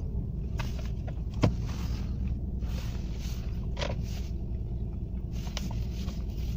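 Toyota Mark II petrol straight-six idling steadily at about 1,000 rpm, heard from inside the cabin just after a flooded cold start, running with very strong vibration. A couple of sharp clicks about a second and a half and four seconds in.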